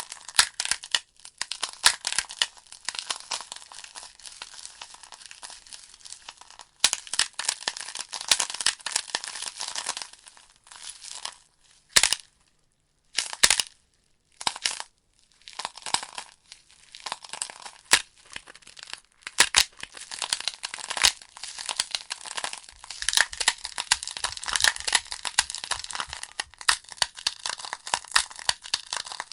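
Wood fire of burning logs in a fireplace, crackling with many sharp pops and snaps, falling almost silent for a few seconds about halfway through before the crackling picks up again.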